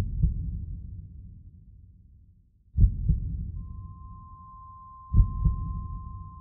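Heartbeat sound effect: three low double thumps, each pair trailing off in a fading low rumble, the gaps between them shortening slightly. About three and a half seconds in, a steady high tone comes in and holds.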